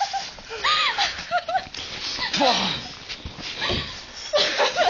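Young people laughing and squealing in short high-pitched bursts.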